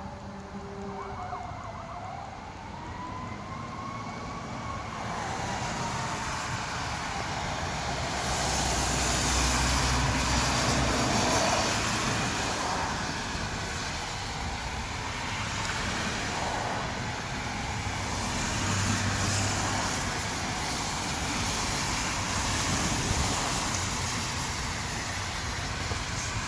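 A Federal Q2B electromechanical fire siren winds down and back up in a slow falling-and-rising wail during the first few seconds. After that a loud, even rushing noise of rain and wet-road traffic takes over, swelling several times.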